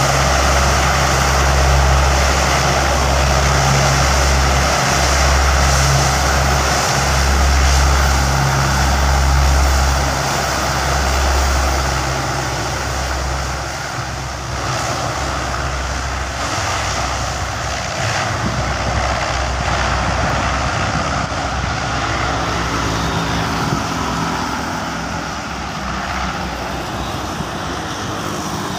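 Lockheed C-130 Hercules's four turboprop engines and propellers droning steadily as it taxis, with a deep low hum. The hum drops away after about twelve seconds as the aircraft moves off, leaving a softer rushing engine noise.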